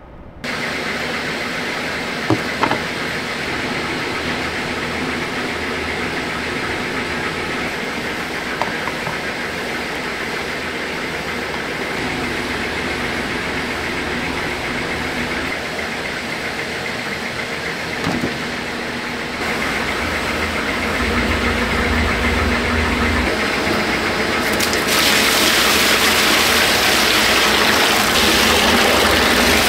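Steady factory machinery noise with a few sharp clicks. About 25 s in, a louder rushing hiss joins: water pouring into a stainless steel mixing tub.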